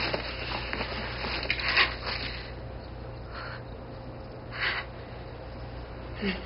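A woman's sharp breaths and sniffs, four short ones spread across a few seconds, over a low steady hum.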